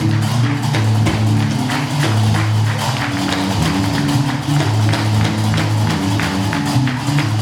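Gnaoua music: a guembri (three-string bass lute) plays a low, repeating bass line under the fast, steady metallic clatter of qraqeb iron castanets.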